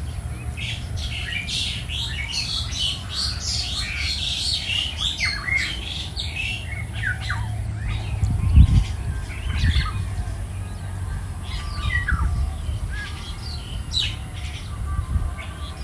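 Many birds chirping and squawking in short sweeping calls, busiest in the first half and sparser later. Under them runs a steady low rumble, with a few stronger low thumps around the middle.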